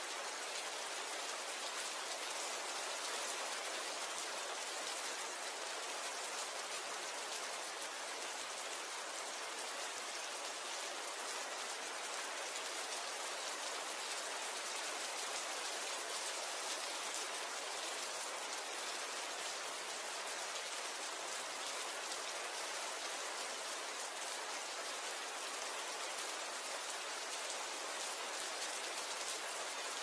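Rain falling steadily: an even, unbroken hiss of many drops, mostly high and with little low rumble.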